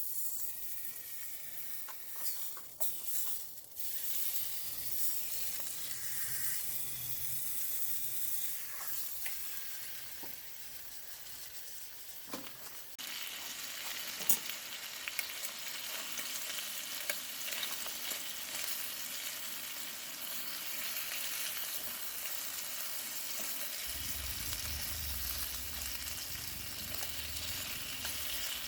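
Food sizzling and frying in a pan, with occasional sharp clicks. The sizzle grows louder about thirteen seconds in.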